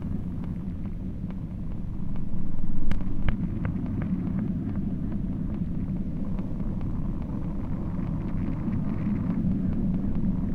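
A steady low rumble with scattered faint clicks. It swells about two seconds in, then drops back sharply just after three seconds.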